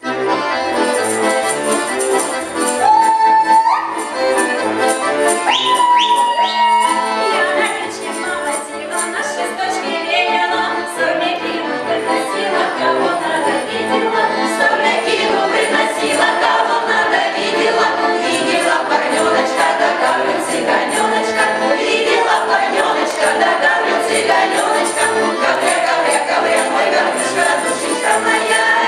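Russian folk choir of women's voices singing a lively song with accordion accompaniment, starting suddenly. Twice in the first seven seconds a high held note slides upward.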